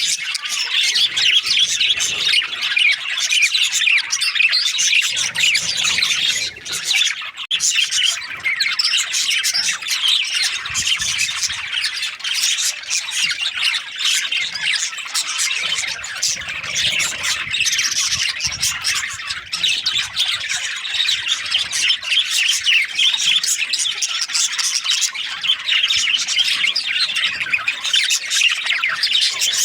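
Budgerigars chattering: a dense, unbroken run of quick overlapping chirps, warbles and squawks.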